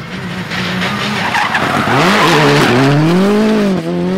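Suzuki Swift R+ four-wheel-drive rally car, about 280 horsepower, powering through a tight road corner: the engine note climbs and falls twice as the throttle is worked, over a rush of tyre noise, getting louder as the car approaches.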